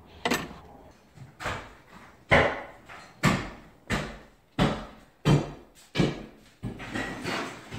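Footsteps on a bare concrete floor, a steady walking pace of roughly one to one and a half steps a second. Each step is a sharp knock with a short echo from the empty room.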